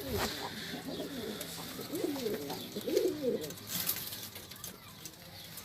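Domestic pigeons cooing, several low calls that rise and fall in pitch, one after another.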